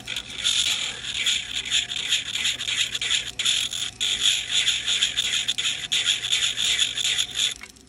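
Rotary tool with a sanding drum sanding down a peg on the end of a silverware handle: a gritty, fluctuating sanding noise over the motor's steady hum, fine-tuning the peg's fit. It cuts off sharply near the end.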